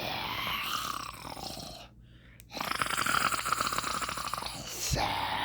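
A person's voice doing zombie noises: a raspy groan, a short break about two seconds in, then a longer rattling, snore-like growl.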